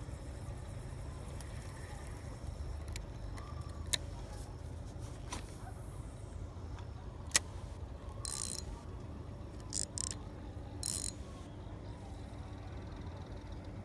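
Spinning reel and rod being handled: two sharp clicks, then three short high whirring bursts a little over halfway through as line is wound in, over a low steady rumble.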